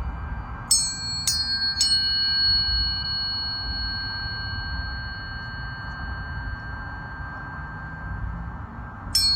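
Tuning forks struck three times in quick succession about a second in. Each strike is a bright metallic ding, and together they leave several steady high tones ringing as a chord that slowly fades. Another strike comes near the end.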